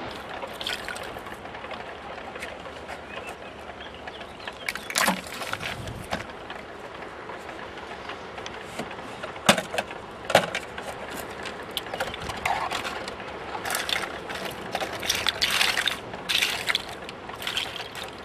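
Hollow plastic bottles and plastic bottle caps clicking and clattering as they are handled, in scattered knocks that grow busier near the end, over a steady rushing background.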